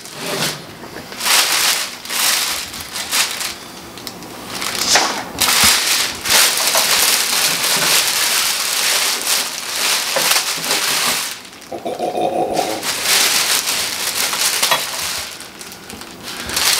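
Clear plastic bag wrapping crinkling and crackling as it is pulled and torn off a new metal-cutting chop saw, in uneven loud bursts.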